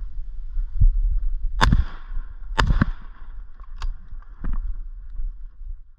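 Wind rumbling on the microphone, with several sharp knocks or pops, the loudest two about a second apart near the middle.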